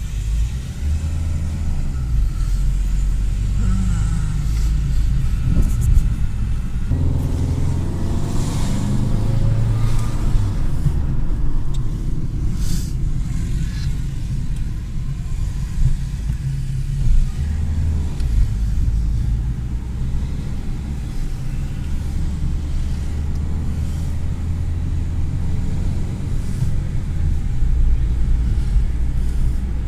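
Low, steady road and engine rumble inside the cabin of a car driving through town, swelling for a few seconds from about seven seconds in, with a few brief knocks.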